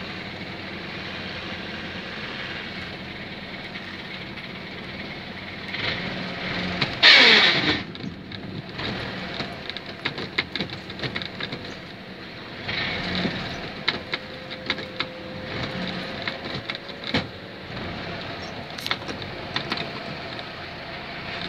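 Tracked UAZ-3909 van's gasoline engine running steadily under load as it crawls through swamp water. About seven seconds in there is a loud, brief rush of noise with a falling tone, and scattered sharp clicks and knocks follow through the rest.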